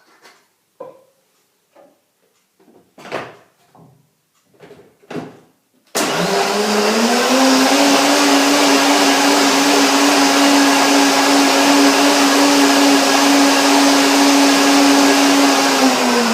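A countertop blender switches on suddenly about six seconds in and runs at a steady high speed, blending raw carrot soup into a foamy purée. Before it starts there are a few short knocks and clicks.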